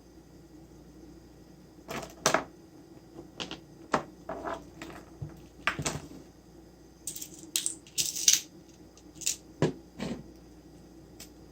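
Irregular clicks, knocks and light metallic clatter, like small hard parts or tools being handled and set down, over a faint steady hum.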